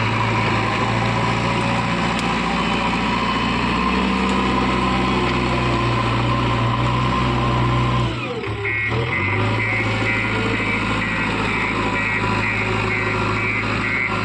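Heavy diesel engine of a JCB 3DX backhoe loader running under load while it works. The note dips briefly about eight seconds in, then settles again.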